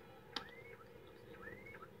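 Fireworks going off at a distance: one sharp pop about a third of a second in and a fainter one near the end. Short high chirps that rise and level off come about once a second.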